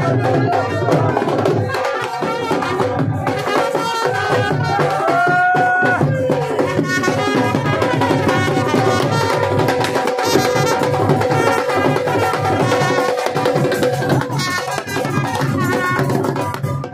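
Punjabi dhol drums beating a fast, steady rhythm, with a trumpet playing a melody over them and holding a long note about five seconds in.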